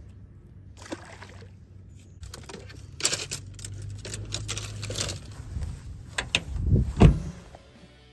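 Clatter and knocks of fishing gear being moved about inside a vehicle, over a low steady hum, with one heavy thump about seven seconds in.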